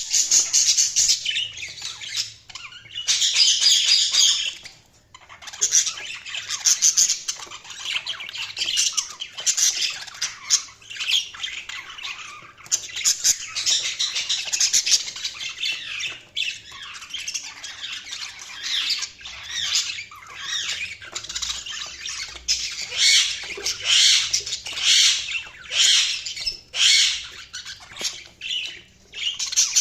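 Budgies (budgerigars) chirping and chattering continuously, with rapid warbles and harsh squawks overlapping as if from several birds, and brief lulls in between.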